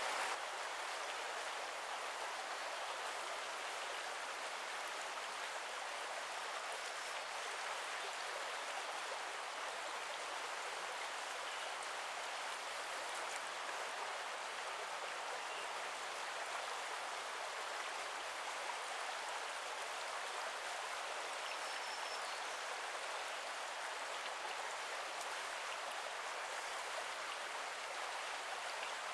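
Small forest brook's water rushing, a steady, even sound with no change in level.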